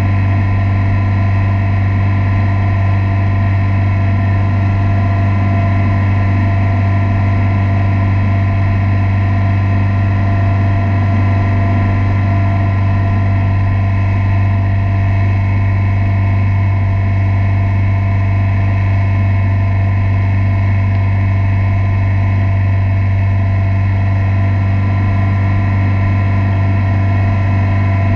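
Motorboat engine running steadily at constant speed while towing, a loud low drone that holds one pitch throughout.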